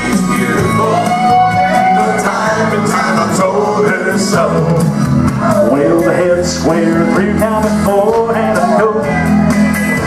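Square dance singing call: a caller sings into a microphone over recorded country music with a steady beat.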